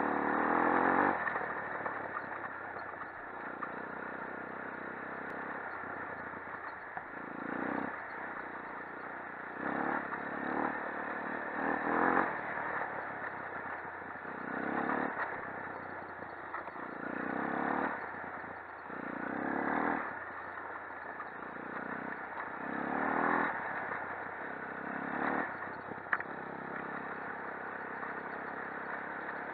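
Shineray 250 quad ATV's single-cylinder engine running under way, its note rising and falling every two to three seconds as the throttle is worked, with rattling from the machine over the rough trail.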